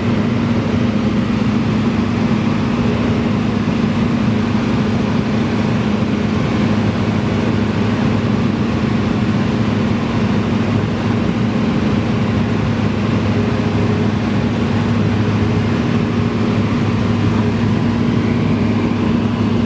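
Cessna 172's piston engine and propeller droning steadily at constant power, a loud even hum that does not change.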